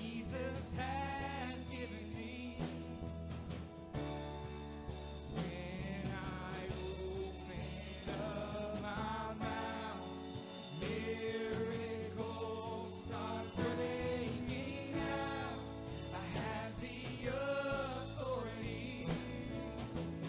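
Live worship music: singers performing a gospel song over a band with steady bass and sustained chords, the voices rising and falling in held, wavering notes.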